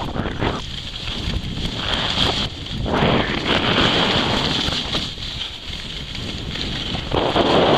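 Wind rushing over the microphone of a skier's camera, with skis scraping over groomed snow in swells that rise and ease with each turn.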